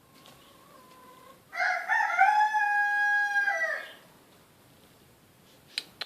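A rooster crowing once, a call of about two and a half seconds that ends in a long held note and drops away. A few sharp clicks follow near the end.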